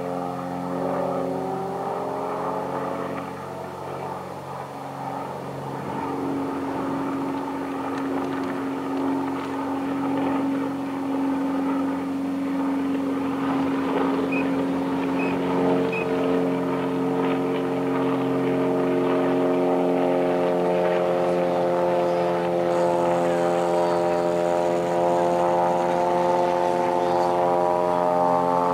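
Propeller aircraft engine droning steadily, its pitch shifting slowly.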